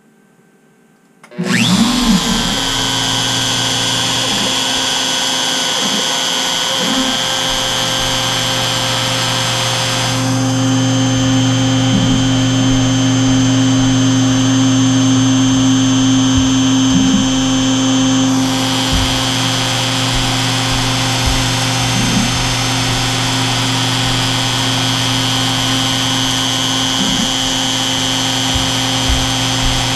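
CNC router spindle running with a small end mill cutting into delrin: a loud, steady high whine with cutting noise that starts suddenly about a second and a half in. It sounds duller for a stretch in the middle.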